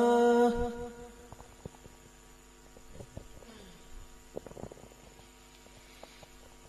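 A muezzin's long-held note ending the phrase 'Ashhadu anna Muhammadan rasulullah' of the adhan (Islamic call to prayer) stops about half a second in and trails off. A pause follows, with only a faint steady hum and a few scattered small clicks.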